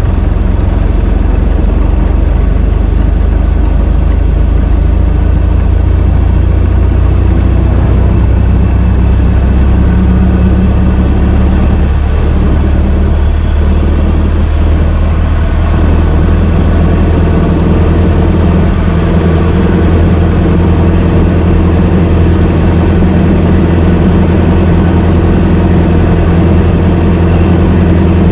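Old car's engine idling, a steady low running sound that wavers slightly partway through before settling again.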